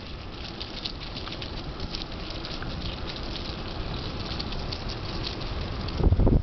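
Mountain bike tyres rolling over a path thick with dry fallen leaves, a steady dense crackle of leaves under the tyres. Near the end, wind buffeting the microphone comes in loudly.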